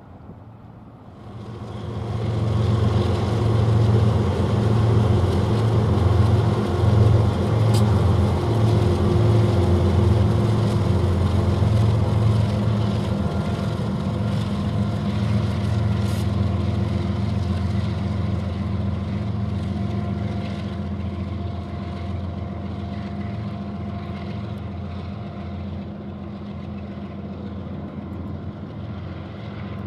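Two diesel-electric freight locomotives leading a double-stack container train pass close by, their engines giving a low, steady drone that comes up sharply about a second in and slowly fades as they pull away.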